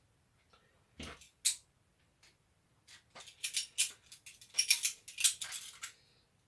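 Irregular clicks and scrapes of a plastic cordless-drill housing being handled and its screws turned with a hand screwdriver, with a knock about a second in and a busier run of clicks in the second half.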